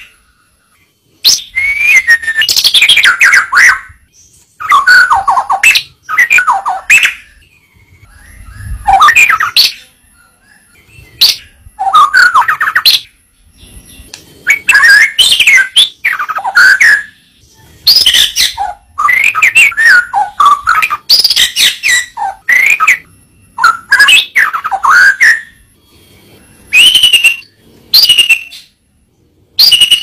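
White-rumped shama (murai batu) singing: a string of short, varied song phrases of quick whistled and chattering notes, each one to two seconds long, with brief pauses between them.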